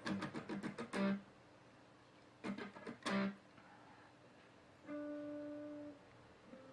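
Guitar strummed rapidly, breaking off about a second in, followed a little later by two short strums. Near the end a steady pitched tone holds for about a second and stops abruptly.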